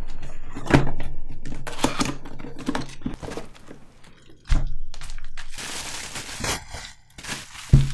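Bubble wrap and packaging crinkling and rustling as it is handled and pulled open, with a few knocks from handling.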